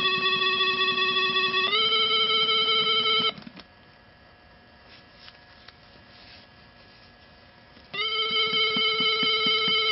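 Light-up Halloween skull toy's electronic sound: a buzzy two-note tone that steps between a higher and a lower pitch every couple of seconds, over a fast low pulsing from its vibration. It stops about three seconds in and starts again about eight seconds in.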